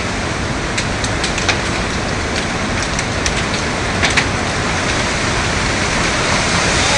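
Tornado storm heard from inside a house through an old cell phone's microphone: a loud, steady rushing of wind and rain, with scattered sharp knocks, a couple near the start and a pair about four seconds in.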